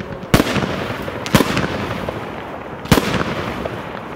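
Aerial firework shells bursting: three sharp bangs, about one and one and a half seconds apart, each trailing off in an echo, over a steady crackle of other fireworks.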